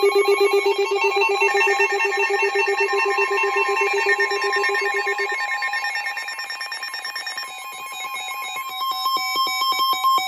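Emergency Alert System and NOAA Weather Radio electronic alert tones between two warnings: several steady tones pulsing rapidly like a telephone ring, their pitches shifting a few times. A single steady alert tone grows louder near the end.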